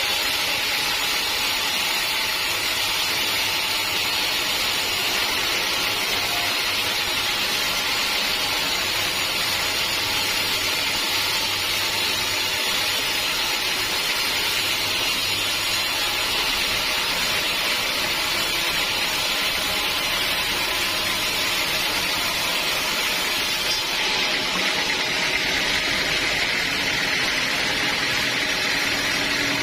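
Sawmill saw cutting through a teak log, a loud, steady mix of blade hiss and motor running without a break. The highest part of the hiss drops away about three quarters of the way through.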